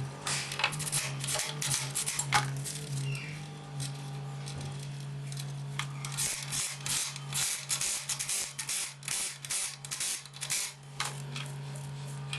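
Background music over a steady low hum, with a run of quick clicks and taps that come thickest in the second half.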